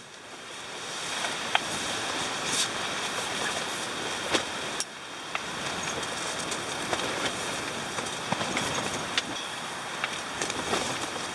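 Strong wind against the tent, a steady rushing noise, with scattered light clicks of chopsticks and tongs against a metal camping pot and steel plates as spaghetti is served.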